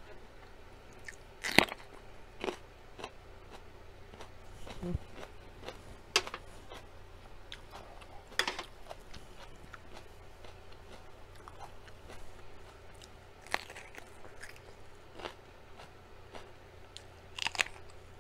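Close-up crunchy bites into a raw orange sweet pepper and chewing, with a handful of sharp crunches spaced several seconds apart.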